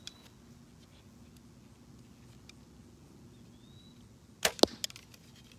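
A Diamond compound bow being shot: a sharp crack and, about a fifth of a second later, a louder one, about four and a half seconds in, followed by a few light clicks.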